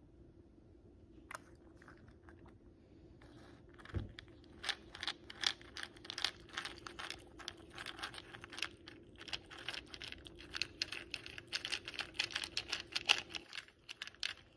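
A cat crunching and chewing fish-shaped crackers, a rapid run of crisp crunches a few each second that starts with a low knock about four seconds in and stops just before the end.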